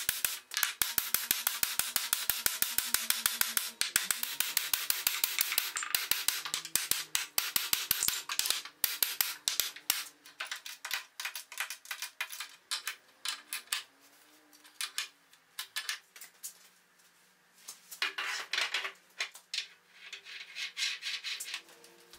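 Hand tool rasping and scraping on wood in fast, regular strokes, which thin out after about ten seconds into scattered scrapes and knocks.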